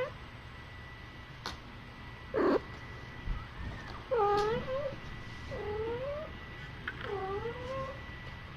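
Young kitten mewing: a harsh squawk about two and a half seconds in, then three high, bending cries in quick succession. The cries come as she strains to pass her first stool.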